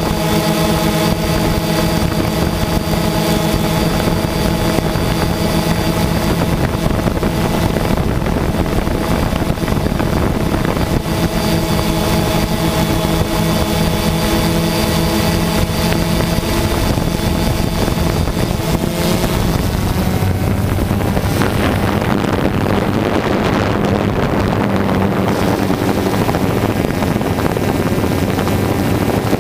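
Drone's electric motors and propellers whirring steadily, a whine made of several tones over a rushing noise. About two-thirds of the way through the pitch shifts lower and the rushing grows louder.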